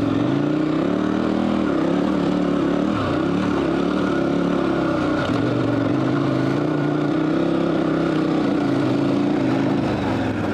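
KTM 1190 Adventure R's V-twin engine running as the bike is ridden through a sand wash, its pitch rising and falling with the throttle.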